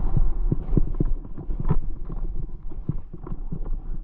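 Skis cutting and chattering through chopped-up snow, with irregular knocks and thumps several times a second as they hit bumps, over a steady low rumble.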